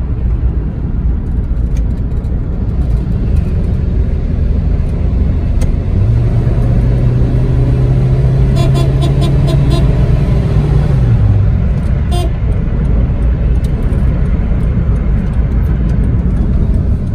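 Car driving on a road, with steady engine and road rumble heard from inside the moving vehicle. A steady low droning tone joins about six seconds in and drops away some five seconds later.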